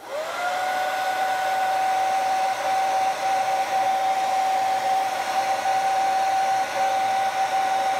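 Electric heat gun running, spinning up in the first half second into a steady whine over rushing air as it blows hot air onto heat shrink tubing to shrink it.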